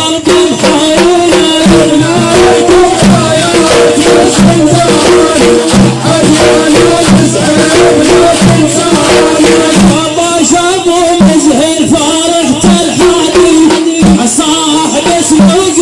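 Instrumental music between sung verses: a held melody over fast, dense percussion with a shaker-like rattle and a repeating low bass line.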